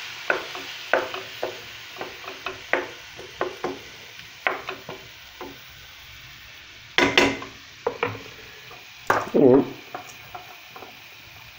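Wooden spoon stirring chopped tomatoes and onions in a pot over a faint sizzle of olive oil, with many short taps of the spoon, then two louder clatters about seven and nine seconds in.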